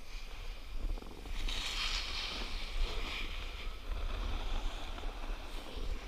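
Wind rumbling on the microphone, with a hissing scrape of a snowboard edge skidding across the snow about a second and a half in, lasting about two seconds.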